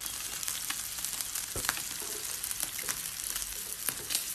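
A steady hiss with scattered small crackles and clicks.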